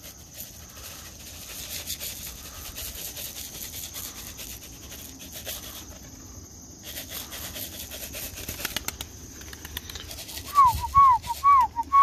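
A person whistling four short falling notes in quick succession near the end, a call to bring roller pigeons down to the loft, over faint outdoor background.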